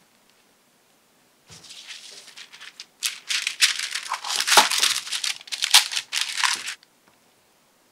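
Parchment paper crinkling and rustling as it is pressed and smoothed into an air fryer tray: a quieter rustle from about a second and a half in, then loud, dense crackling from about three seconds, stopping shortly before the end.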